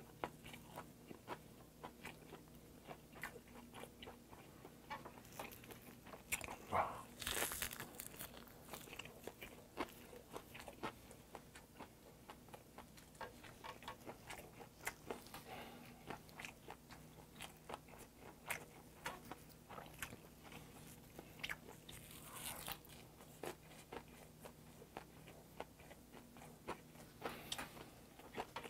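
Close-miked chewing of a roll of crisp dried laver wrapped around rice and mustard-leaf kimchi: faint crunchy bites and mouth clicks, with a couple of louder crackles about 7 and 22 seconds in.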